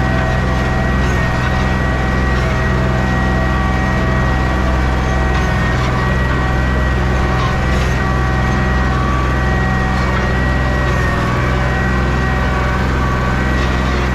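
An engine running steadily at a constant speed, with a steady high whine above the low engine note.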